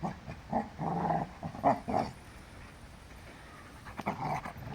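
Dogs growling while they play-fight: a run of short growls in the first two seconds, then quieter scuffling. The growling is play, not a real fight.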